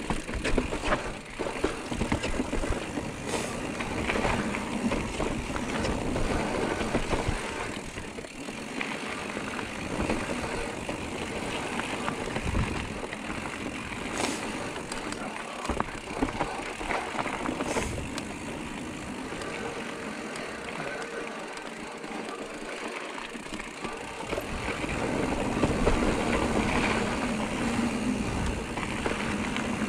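Giant Trance E+3 electric mountain bike being ridden along a rough trail: a steady rush of tyre and wind noise with frequent clicks and knocks as the bike rattles over bumps.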